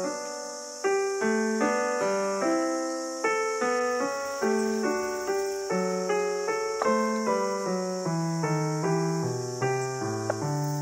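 Background piano music: a gentle, evenly paced melody of single notes over a bass line that steps lower toward the end.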